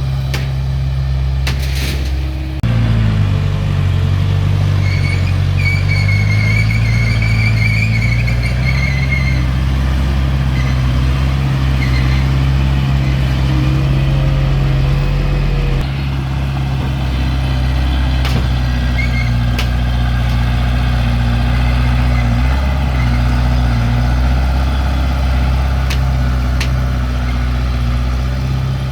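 Diesel engine of heavy earthmoving equipment running steadily. The engine note dips and recovers about three seconds in, and a faint high squeal follows for a few seconds, with a few short knocks later.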